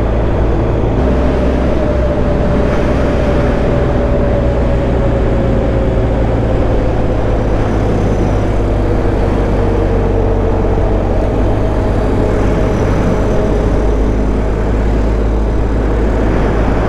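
Dual-sport motorcycle engine running at road speed under heavy wind rush on the microphone, its revs slowly dropping over several seconds.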